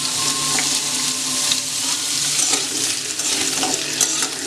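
Food frying in hot oil in a pan with a steady sizzle, and scattered light clicks from stirring.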